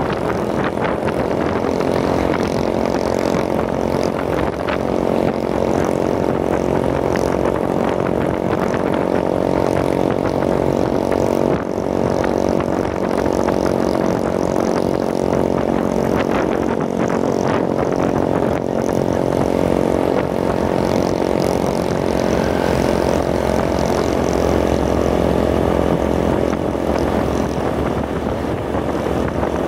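Small motor scooter's engine running steadily at cruising speed, heard from the rider's seat, with wind rushing over the microphone.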